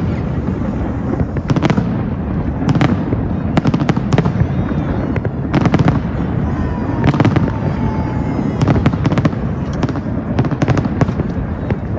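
Fireworks show, with bangs and crackling bursts going off in quick clusters over a continuous low rumble.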